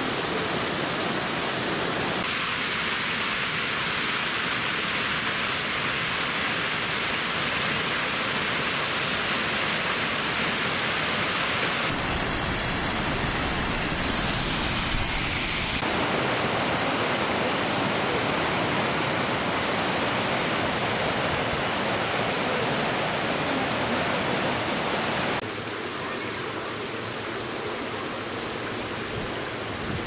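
Steady rushing of a waterfall and its stream, changing abruptly in level and tone a few times as the shots change, and dropping to a quieter rush of the stream near the end.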